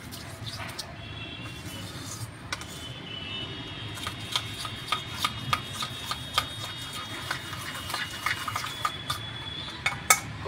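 Metal spoon stirring a thin flour-and-water slurry in a stainless steel bowl, scraping the bowl and clicking against its sides in quick, uneven taps that come thicker in the second half.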